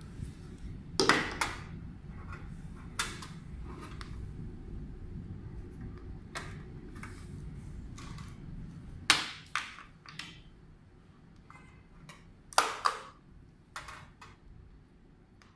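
Handling noise from a black network video recorder box and its cables on a wooden desk: scattered sharp knocks and clicks as the box is moved and connectors such as a VGA plug are pushed into its back panel, the loudest about a second in, about nine seconds in and about twelve and a half seconds in.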